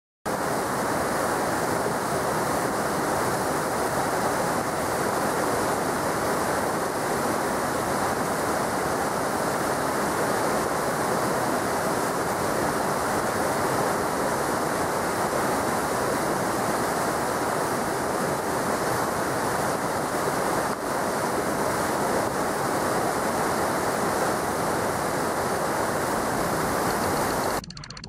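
Mountain stream rushing over rocks in rapids: steady water noise at an even level, which cuts off suddenly just before the end.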